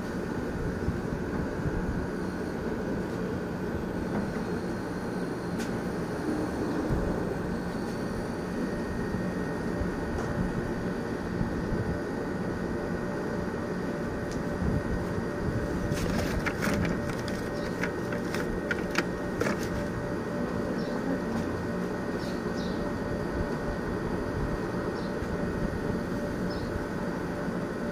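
A steady low mechanical hum and rumble with a few held tones in it, and a short run of sharp clicks about sixteen to nineteen seconds in.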